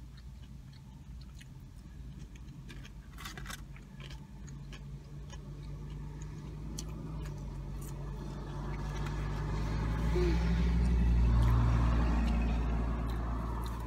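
A passing motor vehicle, its engine and tyre noise swelling to a peak about ten to twelve seconds in and then easing off, heard from inside a vehicle's cabin.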